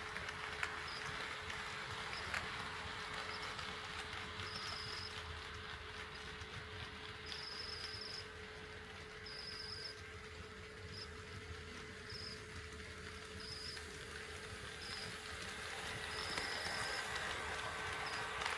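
HO scale model train running on KATO Unitrack: a steady rolling rattle with a constant hum, and short high-pitched chirps that come and go every second or two. The noise drops a little in the middle and grows again near the end.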